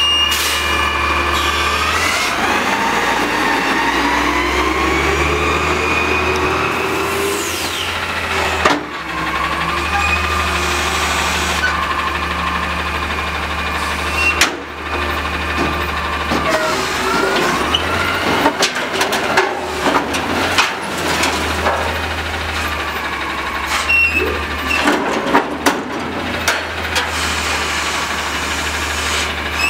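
A CNG garbage truck's engine is revved to drive the Heil front-loader's hydraulics, rising in pitch as the arms lift a dumpster up over the cab. This is followed by sharp metal knocks and a series of clanging bangs as the dumpster is tipped and shaken empty into the hopper.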